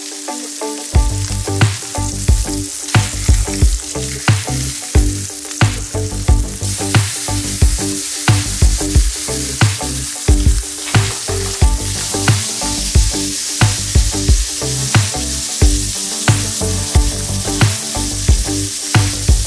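Speckled trout fillets sizzling in hot oil in a frying pan as they are blackened, the hiss getting louder about seven seconds in. Background music with a steady beat plays over it, its bass coming in about a second in.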